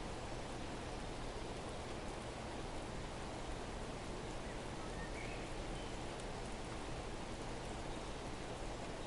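Steady, even outdoor noise like light rain or rustling, with a couple of very faint short chirps about five seconds in.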